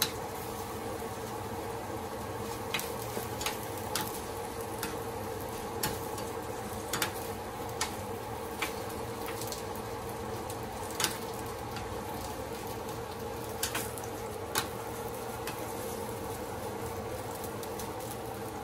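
Sliced hotdogs frying in a skillet, with a steady sizzle and scattered sharp clicks as a slotted spatula turns them in the pan.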